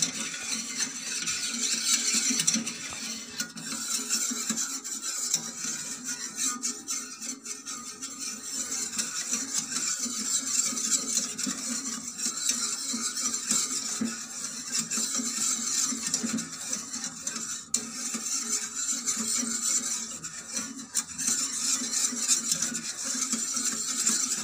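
Metal wire whisk scraping and clinking against an aluminium saucepan, stirring milk and cornstarch without pause so the thickening cream doesn't stick to the bottom.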